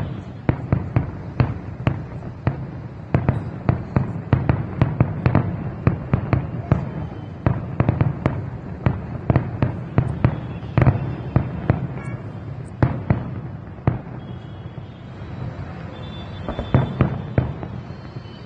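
Fireworks going off in a rapid, irregular string of bangs and pops, several a second, thinning out briefly past the middle and picking up again near the end.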